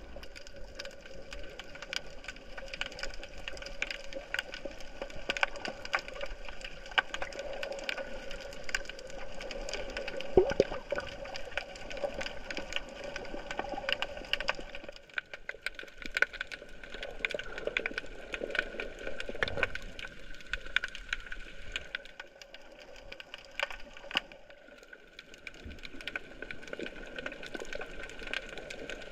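Underwater ambience picked up by a GoPro in its housing: dense, irregular crackling clicks over a steady hum made of several constant tones, thinning out for a few seconds about three-quarters of the way through.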